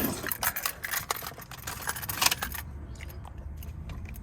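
Keys jangling and clicking on a key ring as the ignition key is worked to unlock the steering column, with a sharp knock about two seconds in. The jangling stops about two and a half seconds in.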